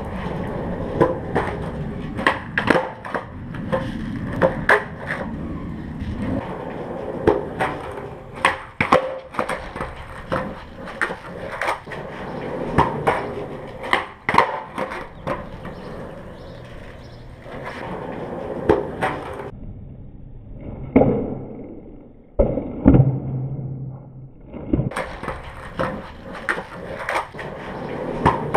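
Skateboard wheels rolling on smooth concrete, with repeated sharp tail pops and the board slapping and clattering down as flip tricks are tried over and over. The impacts thin out for a few seconds about two-thirds of the way through, leaving mostly rolling noise.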